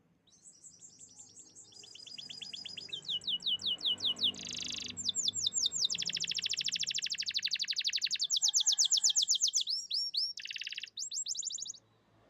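Canary singing one long song made of fast trills, each a quick run of the same high note repeated many times a second, changing from one run to the next. It starts about half a second in and stops shortly before the end.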